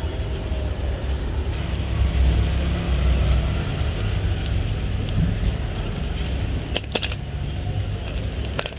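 Stainless steel chain links clinking and rattling against each other and the concrete floor as the chain is handled and worked with pliers, with a few sharp metallic clicks in the second half over a steady low rumble.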